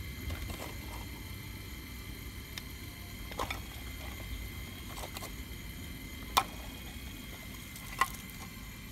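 Remote-controlled model Caterpillar 349 excavator working its bucket through loose shale: small gear motors whirring with a faint steady whine, and scattered clicks of shale chips against the bucket, the two loudest and sharpest about six and eight seconds in.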